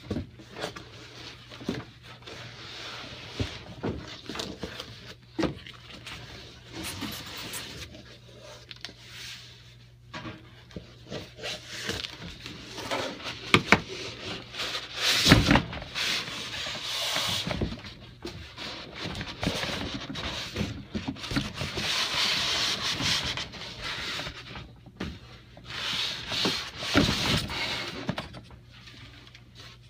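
Cardboard box and packing material being handled: rustling, rubbing and scraping with scattered knocks as a panel is worked out of its packaging, loudest about halfway through, over a faint steady low hum.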